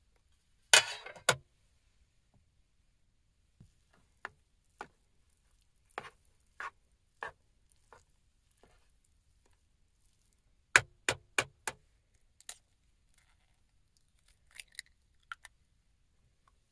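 Scattered sharp clicks and knocks from handling small objects, with quiet between them: a quick cluster about a second in, single ticks every half second or so, four rapid clicks in a row around eleven seconds, and a few fainter ticks near the end.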